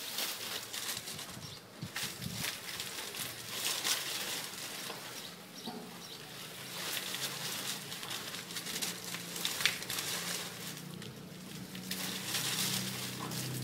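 Coconut palm fronds rustling and crackling irregularly as a person and a small dog shift and scramble across a pile of them.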